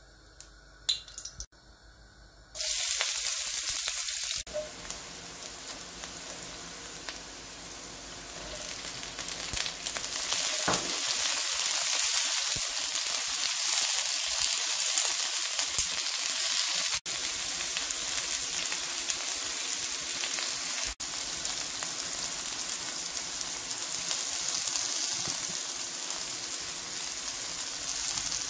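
Chopped pak choi sizzling in hot oil in a wok, stirred with a silicone spatula. After a few light clicks, the sizzle starts suddenly about two and a half seconds in and grows louder around the middle.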